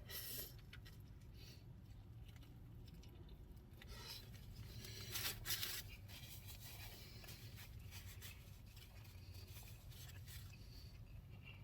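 Faint rubbing and rustling from handling a sandwich and its paper wrapper, with a slightly louder rustle about five seconds in, over a low steady hum.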